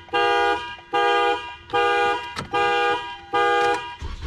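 Toyota Camry's anti-theft alarm sounding through the car horn: loud, evenly spaced honks, about five half-second blasts less than a second apart, set off by reconnecting the battery. The honking stops near the end, with a short low rumble.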